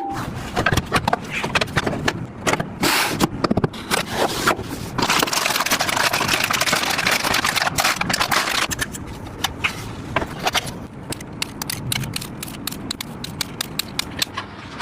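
Computer parts being handled and fitted by hand: a run of sharp clicks and knocks, with a few seconds of continuous scraping and rustling in the middle.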